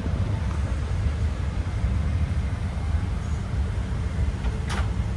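Steady low rumble of a Boeing 777-300ER cabin before takeoff, with one sharp click near the end.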